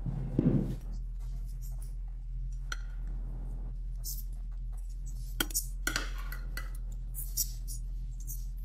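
A glass baking dish set down with a dull thump about half a second in, then a metal serving spoon clinking and scraping against the glass dish and a plate as food is scooped out, a few sharp clinks in a row near the middle. A steady low hum lies under it.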